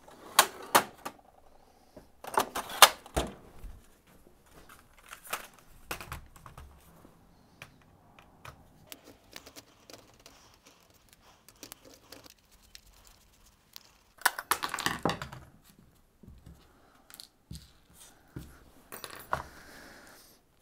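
A steel tool-chest drawer rattling near the start. Then a run of small clicks and metal clatter as a screwdriver undoes the self-tapping screws of a plastic photo-frame clock, with the screws and frame parts set down on a wooden bench.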